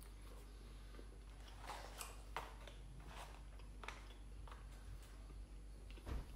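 Quiet eating sounds: a scattering of short, soft smacks and clicks from chewing and handling the food, irregularly spaced a fraction of a second to a second or so apart.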